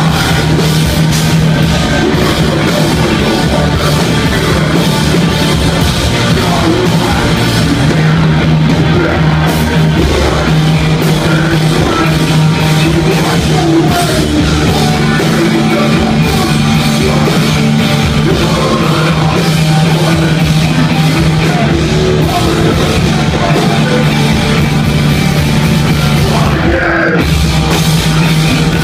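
Live rock band playing loud, with distorted electric guitars and a drum kit driving steadily, and some singing over them.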